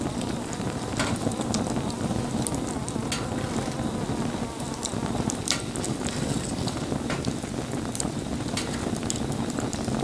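Wood bonfire burning: irregular sharp crackles and pops from the burning wood over a steady low rumble.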